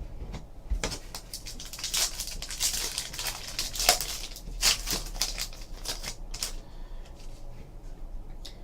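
A trading card pack's wrapper being torn open and crinkled by hand, with a dense crackling rustle from about a second in to about six and a half seconds, then a few light ticks as the cards are handled.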